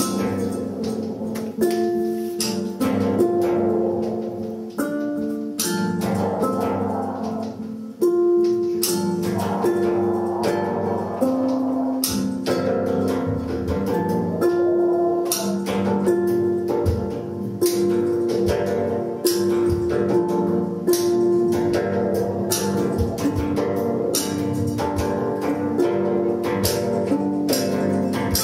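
Live improvised ensemble music: held pitched notes that change every second or so over a stream of sharp clicks and taps, with a bicycle wheel played as one of the instruments.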